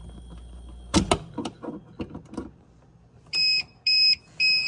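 A plug is pulled with a short clatter of clicks, and a low hum cuts off with it. About two seconds later the UPS starts its alarm: three short beeps of one pitch, about half a second apart, the signal that it has switched to battery power.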